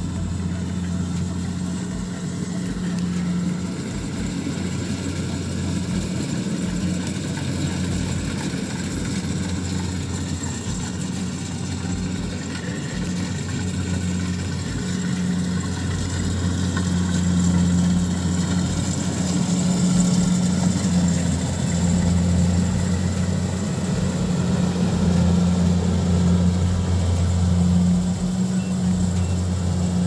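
Kubota DC70 Plus combine harvester's diesel engine running steadily under load as it cuts and threshes rice, a continuous low drone that grows louder past the halfway point.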